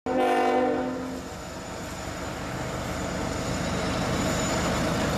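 The air horn of a CSX diesel freight locomotive sounds a steady chord that stops about a second in. After it comes the steady low rumble of the locomotive's diesel engine, mixed with the rushing hiss of snow thrown aside by its plow, growing gradually louder as the train approaches.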